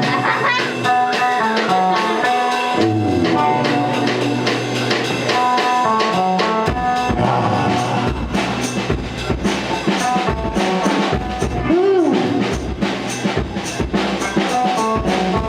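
Live rock band playing: electric guitar notes and slides at first, then drums and bass come in heavily about seven seconds in.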